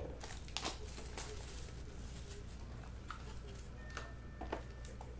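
Hands opening a small cardboard trading-card box: scattered light taps and clicks of cardboard being handled, over a low steady hum.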